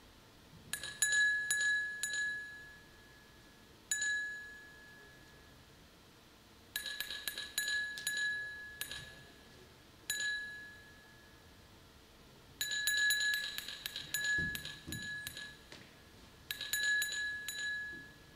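A single high ringing note, struck again and again in quick runs of several strikes with short pauses between, each strike ringing on briefly like a small chime.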